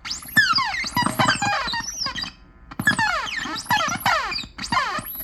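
Homemade sound-effect gun built on an old toy sound chip, played through an amplifier: a quick string of electronic zaps, each one a falling sweep in pitch, several a second, with a brief pause about two and a half seconds in.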